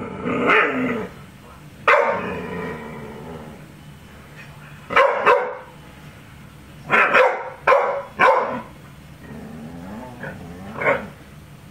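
Dog barking at balloons in uneven bursts: about nine loud barks, some single and some in quick pairs, with the first two drawn out.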